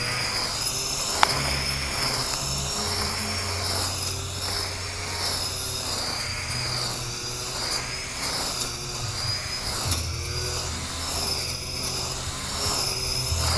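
Cordless battery-powered grass trimmer (a Makita replica) running flat out through thick grass. Its high motor whine wavers and swells about once a second as the head sweeps side to side. A single sharp tick comes about a second in.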